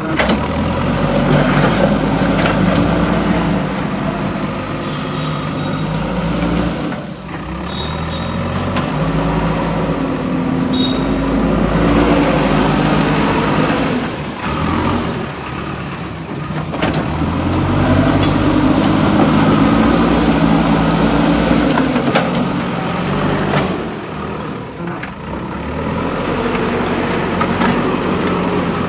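JCB 3DX backhoe loader's four-cylinder diesel engine working under load, revving up and down as the hydraulics dig and lift. It eases off briefly three times, about a quarter, halfway and most of the way through.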